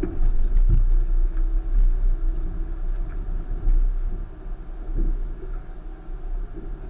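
1999 Subaru Forester's flat-four engine idling, heard from inside the cabin as a steady low rumble, with a few short knocks.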